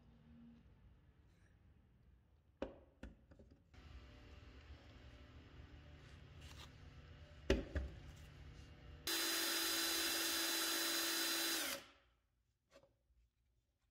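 Cordless drill motor running at full speed for about three seconds, spinning a chrome flashlight part against a scouring pad to polish it, then cutting off. Handling knocks come before it.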